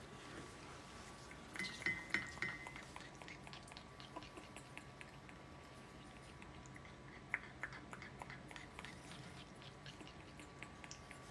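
African grey parrot eating a treat, its beak making small scattered clicks and crunches, with a brief cluster of louder clicks and short high squeaks about two seconds in. A faint steady high hum runs underneath.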